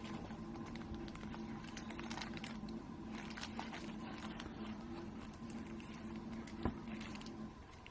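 Faint rustling and light clicking of small plastic packets of spare drone propellers being handled, over a low steady hum, with one sharper click near the end.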